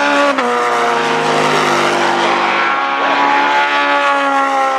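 Racing car engines running hard at high revs. About a third of a second in, the pitch drops sharply, then sags slowly before holding steady.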